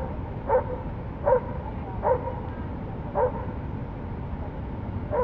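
A dog barking repeatedly: about five short barks spaced roughly a second apart, over a steady low rushing noise.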